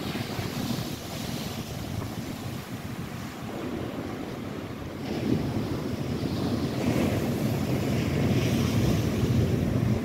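Lake Erie waves breaking and washing onto the shore, with wind buffeting the microphone. The wash grows louder about halfway through.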